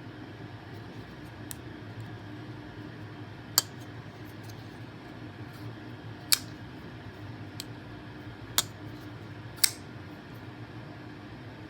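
CIVIVI Praxis flipper pocket knife being flipped open and snapped shut: sharp metallic clicks at uneven intervals, four loud ones and a few fainter ticks, over a steady low hum.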